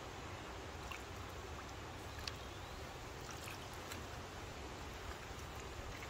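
Water sloshing and dripping as rubber-gloved hands stir and lift sodden, fermenting fleece out of a tub of brown suint water, with a few small sharp drips and splashes.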